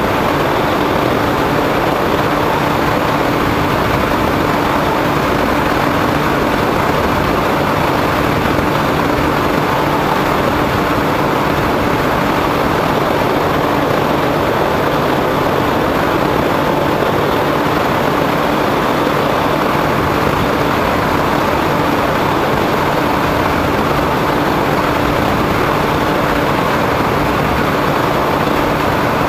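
Small RC foam plane's motor and propeller running at a steady throttle, heard through the onboard camera as an even rush with a constant hum.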